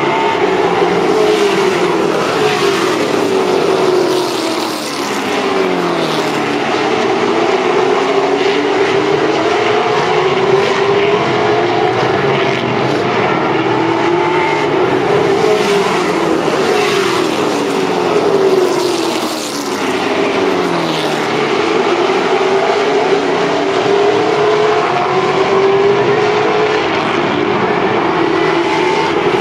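A pack of late model stock cars racing on a short oval, their V8 engines at full throttle in many overlapping notes that rise and fall in pitch as the cars sweep past. The sound dips briefly twice, about 5 and 19 seconds in, as the pack goes away down the far side.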